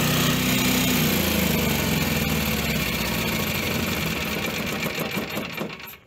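A 7 kW Carrier standby generator, built by Generac, running at its no-load governed speed of about 62.5 Hz. From about a second in the engine note drops and fades as it shuts down and spins down, going quiet at the very end.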